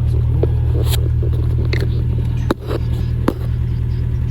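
Freshly rebuilt Toyota 22RE 2.4-litre four-cylinder engine idling steadily with an even low pulse. Two sharp clicks, a little under a second apart, stand out past halfway.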